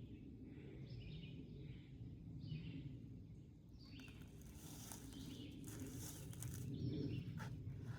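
Faint outdoor background: a steady low rumble with a few faint bird chirps, and brief rustling about halfway through and again near the end.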